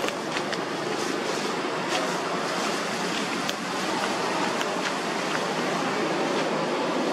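Steady outdoor rushing noise, even and unbroken, with a few faint clicks scattered through it.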